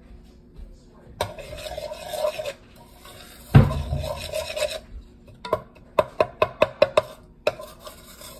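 Metal spoon scraping and stirring in a plastic bowl of slime mixture, with one heavier thump about three and a half seconds in. Past the middle comes a quick run of about eight sharp taps in a second and a half, then the scraping resumes.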